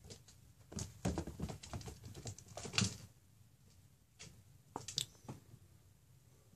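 A cat's paws and claws pattering and scrabbling on a hard floor as it dashes after a laser dot: a run of quick taps about a second in, then a few more near the middle.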